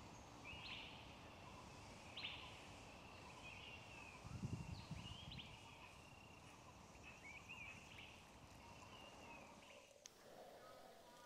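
Faint outdoor ambience with short high chirping animal calls repeating every second or so. A brief low rumble comes about four and a half seconds in.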